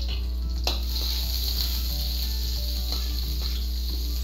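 Diced onion and garlic sizzling steadily in hot oil in a wok. A few sharp knocks of a metal spatula against the wok come near the start and again later.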